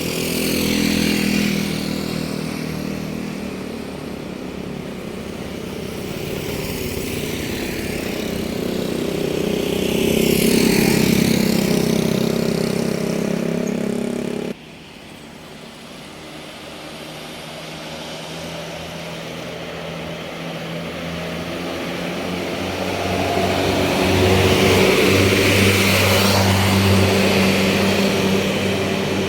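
Large vehicles, most likely tour buses, driving past on the road one after another, their engines swelling as each comes close and fading as it moves away, three times. The sound cuts off abruptly about halfway through.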